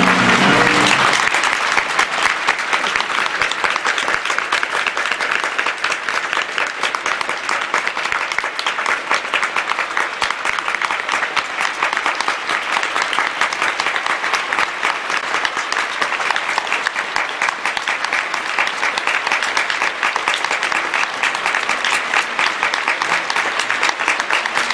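Theatre audience applauding steadily, after the orchestra's final chord dies away in the first second.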